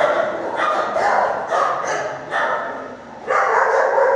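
Dogs barking in a row of shelter kennels, a rapid run of barks several a second, easing off briefly about three seconds in and then starting again loudly.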